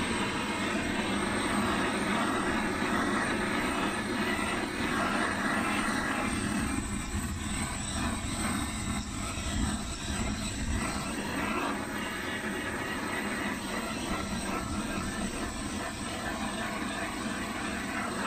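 Blue gas-cartridge blowtorch burning with a steady rushing hiss as its flame is swept over a sanded white plastic motorcycle side panel, flame-treating it to bring back the shine.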